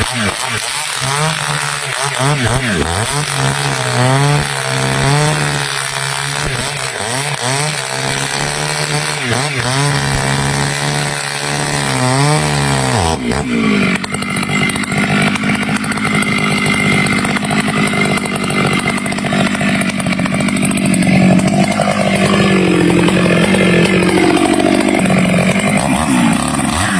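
Stihl two-stroke chainsaw running at high speed while sawing teak. Its pitch wavers under load, and about halfway through the note drops and the sound turns rougher and noisier.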